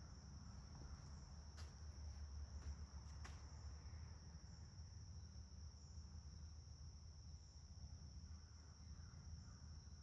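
Near silence, with a faint steady high-pitched whine throughout and a few faint light clicks in the first few seconds.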